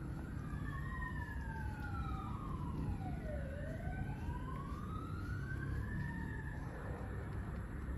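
Emergency vehicle siren wailing, its pitch sliding slowly down for a couple of seconds and then climbing back up, with a second siren tone crossing it. A steady low rumble runs underneath.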